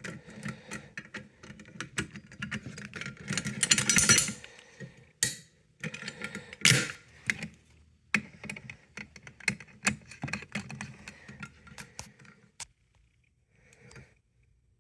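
Handling noise from resetting a Gamewell manual fire alarm pull station: a run of clicks, knocks and metal rattling, with keys jangling. There is a dense rattle about four seconds in and two sharp knocks a second or two later, then it goes quiet near the end.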